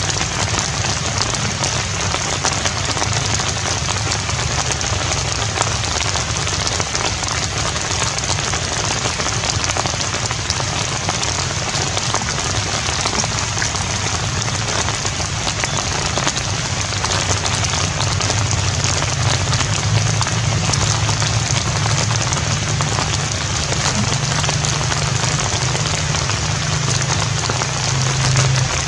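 Steady rain falling, an even unbroken hiss, with a low steady hum beneath it that grows a little louder in the second half.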